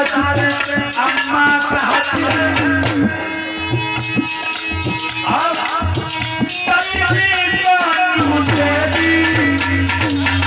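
Live Indian folk music: a hand drum and a rattle keep a brisk rhythm under a wavering melody line.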